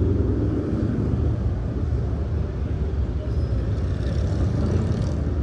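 Steady low rumble of motorcycle engines running nearby, with no single event standing out.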